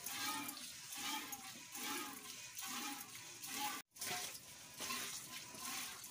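Water buffalo being milked by hand: squirts of milk hissing into a partly filled steel bucket, about two strokes a second. The sound cuts out briefly about two-thirds of the way through.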